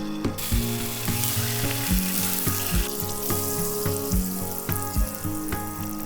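Food sizzling as it fries in a pan. The sizzle comes in strongly just after the start and dies down about three seconds in, over background music with a steady beat.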